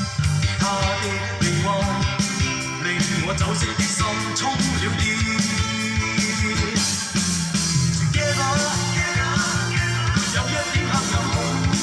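Cantonese rock band music from a 1985 vinyl recording: a full-band passage with guitar over a steady beat.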